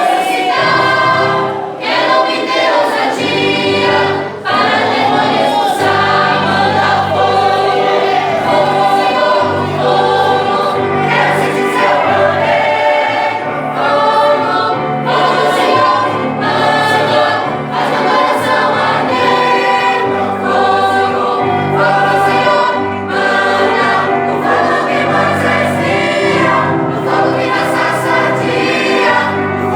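Choir singing a Christian worship hymn in Portuguese, with musical accompaniment carrying a steady low bass line.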